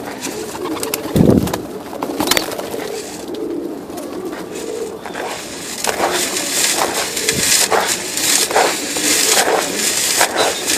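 Domestic pigeons cooing in a loft, with a low thump about a second in and a busier rustling noise among the birds from about halfway on.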